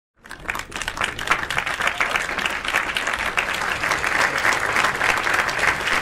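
Applause: many hands clapping in a dense, even patter that builds quickly over the first second and then holds steady.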